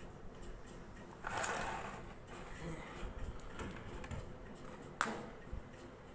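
Handling noise as an analog multimeter and its test leads are set out on a wooden bench. A scraping rustle comes about a second in, then scattered small clicks and one sharp click near five seconds.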